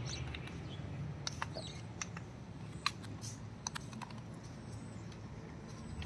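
Several sharp, light plastic clicks, spaced irregularly, over a low steady outdoor rumble: handling of a toy RC flying bird's handheld remote as its stick is pushed up and down to bind it to the bird.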